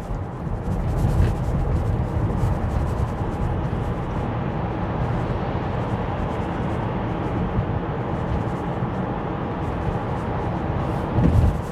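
Steady road and tyre noise heard inside a moving Tesla Model Y's cabin, an even low rumble with no engine note.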